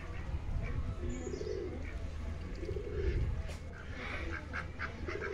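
Low, cooing bird calls, repeated about every two seconds, with a quick run of soft calls near the end.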